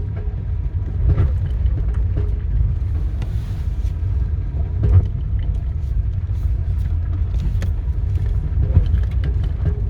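1997 Nissan Micra K11 1.0-litre car running at low speed with a steady low rumble, broken by several sharp clunks, the loudest about five seconds in. The clunks come when the gas pedal is pressed at low speed and go with a jerk of the car.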